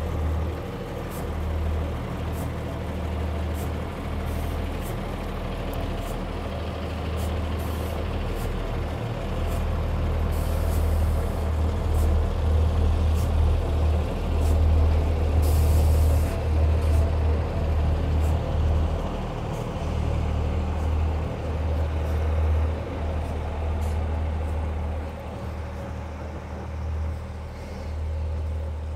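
Class 144 Pacer diesel multiple unit passing close by, its underfloor diesel engines running with a deep pulsing rumble and steady hum; loudest about halfway through, easing off near the end.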